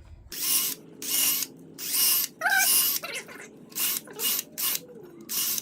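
A hand ratchet wrench being worked in short repeated strokes, about eight of them, roughly one every two-thirds of a second, while tightening bolts on a workbench caster bracket. A brief squeak comes about halfway through.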